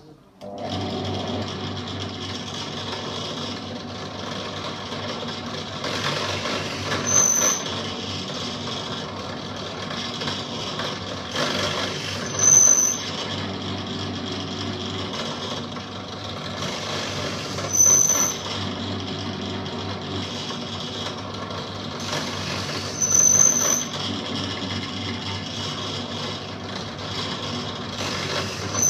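A small electric power tool running steadily, switched on about half a second in. About every five seconds it gets louder for a moment with a high, thin whine.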